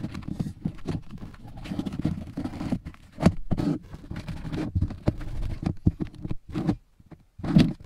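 Handling noise as carbon-fibre vinyl wrap and its paper backing are rubbed and pressed down by hand on a wooden workbench: dull, irregular rubbing and bumping, with a couple of sharper knocks, one about a third of the way in and one near the end.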